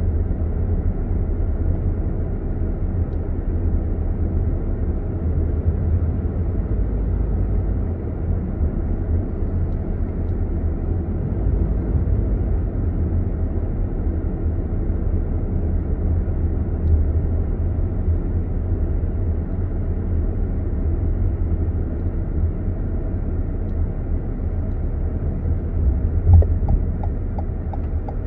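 Car cabin noise while driving: a steady low road and engine rumble, with a brief louder bump near the end.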